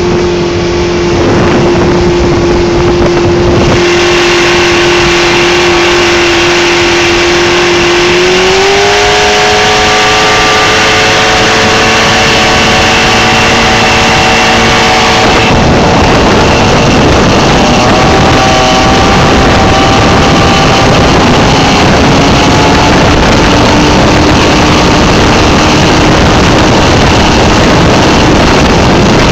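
Mariner outboard motor running hard on a speedboat under way, a steady engine drone that rises in pitch about a quarter of the way through and then holds. Heavy rushing noise of water and wind runs under it.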